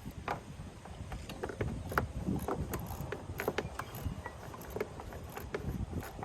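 Irregular clicks and light knocks of metal tools and parts being handled during work on a riding mower's deck, over a low rumble.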